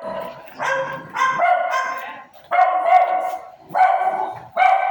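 A dog barking repeatedly: about six drawn-out, fairly high barks, with short gaps between them.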